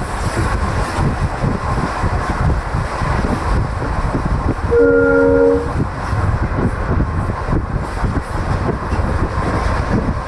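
Passenger train running, a steady rumble of wheels on the track, with a locomotive horn sounding once, a chord of several steady tones lasting about a second, near the middle.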